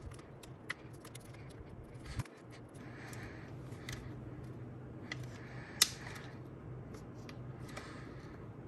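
Plastic pry tool scraping and clicking along the edge of an iPhone's screen, working into the adhesive, with many small ticks and one sharper click about six seconds in.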